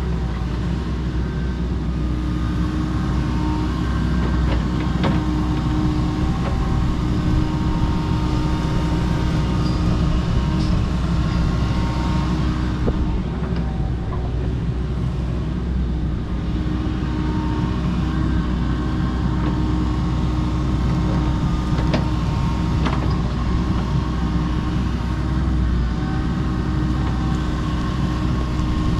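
Kobelco SK85 MSR 8-ton excavator running steadily while clearing overgrowth, with a few sharp cracks and knocks.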